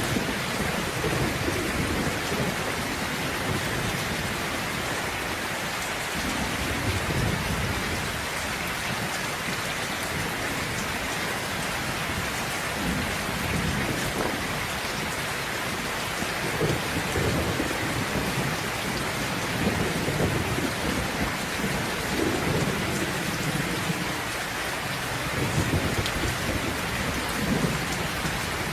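Steady heavy rain falling, with low thunder rumbling and rolling under it, swelling a few times in the second half.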